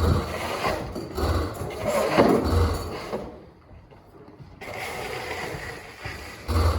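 Vintage snowmobile engine being cranked by repeated pulls on its recoil starter rope, about one pull every second, each with a rope-and-ratchet scrape and a low chug of the engine turning over without firing. After a pause there is another pull near the end.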